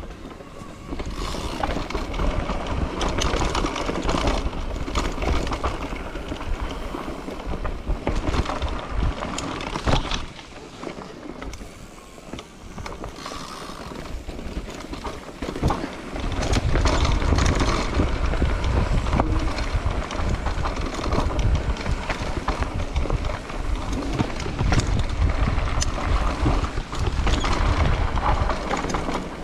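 Wind buffeting the microphone of a moving rider's camera, with rolling noise underneath. It grows louder and deeper from about halfway through.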